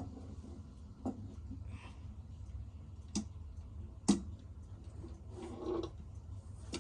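Irregular knocks and bumps from handling a heavy wooden wall clock as it is turned around: four sharp knocks at uneven gaps, then a brief soft rustle near the end, over a low steady hum.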